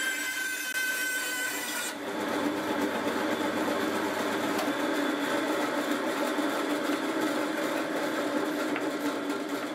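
Wooden-framed bandsaw cutting reclaimed pine into small blocks, with a high whine for the first two seconds and then the saw running steadily.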